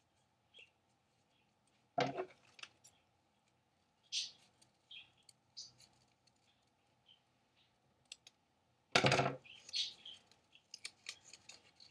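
Paper rustling as a square is folded and handled, with scissors snipping through the folded paper. The two loudest snips come about two seconds in and about nine seconds in.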